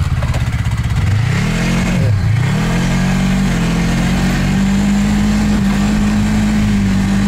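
Snowmobile engine running, its pitch rising and falling twice in the first few seconds, then holding steady at a higher pitch as it drives on.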